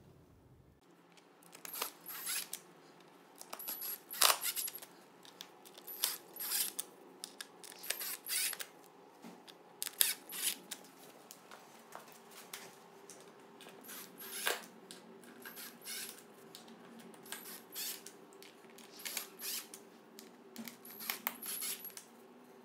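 Irregular sharp clicks and short clattering clusters of small metal hardware and a cordless drill-driver at work, as Rafix connector pins are fitted into melamine bed rails.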